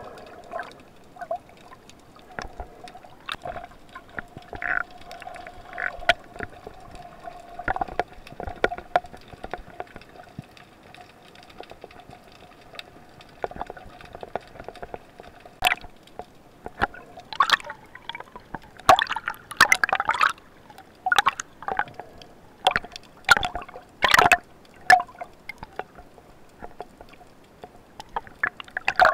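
Underwater water noise: gurgling and bubbling with scattered clicks over a faint steady hum. The gurgling bursts come thicker and louder in the second half.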